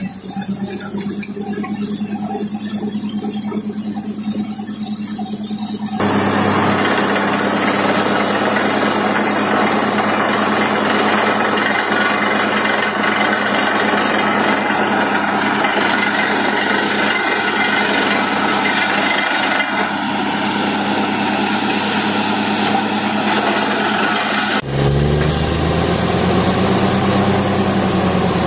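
Truck-mounted borewell drilling rig running, its engine droning steadily under a loud rush of air and spray as water and mud are blown up out of the borehole; the rushing grows much louder about six seconds in. Near the end the engine note rises and falls.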